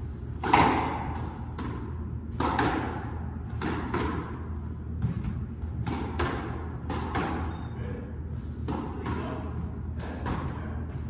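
Squash rally: a squash ball struck by racquets and cracking off the court walls. The hits are sharp, echo in the court, and often come in close pairs, racquet then wall, about once a second. The loudest hit is about half a second in.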